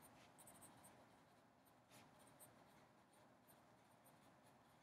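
Faint scratching of a pencil writing on paper, in a series of short strokes.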